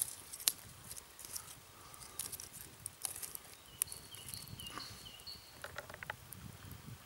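Wood campfire crackling, with irregular sharp pops and snaps throughout. A few short, high whistled notes come in around the middle.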